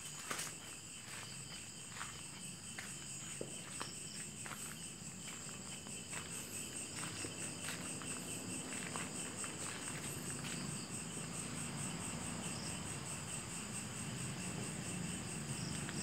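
Night insects chirring steadily in several high-pitched tones, with scattered footsteps in the first half.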